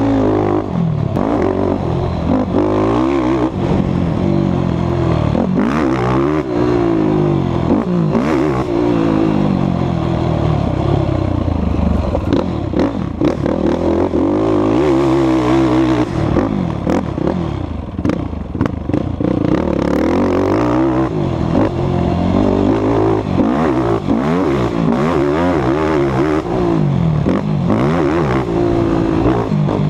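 Yamaha racing quad's engine heard on board at speed, its revs climbing and falling again and again as the quad accelerates and slows around the track, with rattles and knocks throughout.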